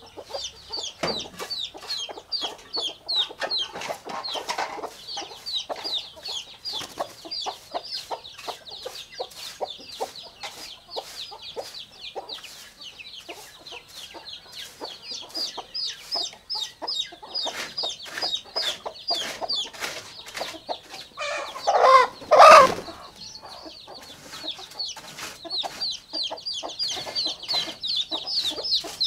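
Chicks peeping continuously, many short high calls several a second, with one louder, lower call from an adult chicken about three-quarters of the way through.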